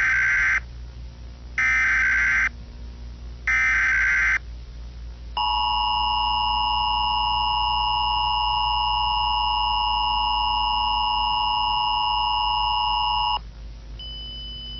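Emergency Alert System header: three short bursts of buzzing SAME data tones, about a second apart. After a brief pause comes the EAS two-tone attention signal, a steady harsh alarm held for about eight seconds.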